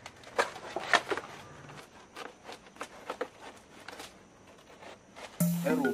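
Scattered crackles and snaps of a banana plant's dry leaves and trunk being handled and pulled at, with two louder snaps about half a second and a second in. Background music with a melody comes in near the end.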